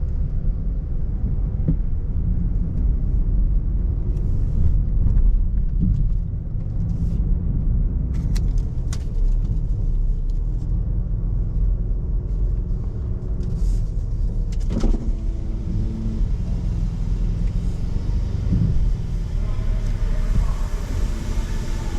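A car's steady low rumble, with a few faint clicks and a short louder sound about fifteen seconds in.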